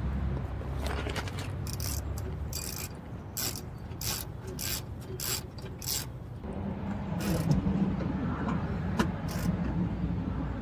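Hand ratchet clicking in a quick series of strokes, about two a second, as the fasteners of the oil service flap under the car are tightened, then stopping.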